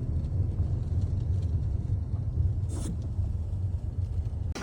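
Low, steady rumble of a car driving, with a brief hiss about three seconds in.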